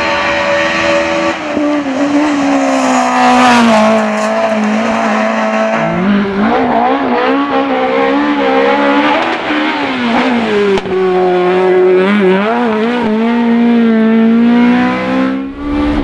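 Rally car engines at full throttle: a BMW M3 E30's four-cylinder engine drives hard and passes, its pitch falling, then after a sudden change about six seconds in a second rally car's engine climbs and drops repeatedly as it shifts gears and lifts through the stage.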